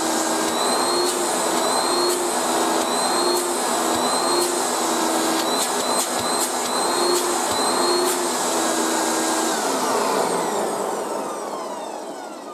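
Hoover Turbopower 2 upright vacuum cleaner running steadily on its first run in 22 years, sounding sweet and healthy. About ten seconds in it is switched off and the motor winds down with a falling whine, fading away.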